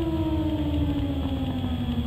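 A single engine winding down, its note falling slowly and steadily in pitch over a low rumble.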